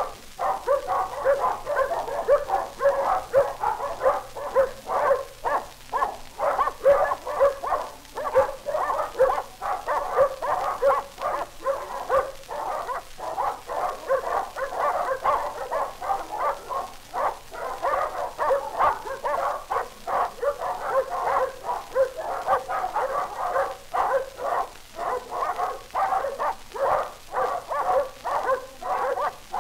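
Dog barking over and over in a rapid, unbroken run, about two to three barks a second.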